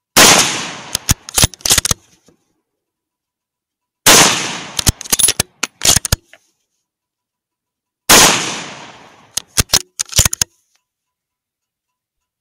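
Three rifle shots about four seconds apart, each a sharp crack that dies away over about a second. Each is followed by a quick run of sharp clicks, with dead silence between the shots.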